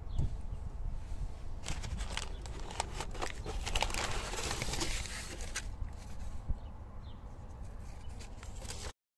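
New brake discs and their packaging being handled: a few seconds of rustling with quick clicks over a low steady rumble, then a single click. The sound cuts off suddenly near the end.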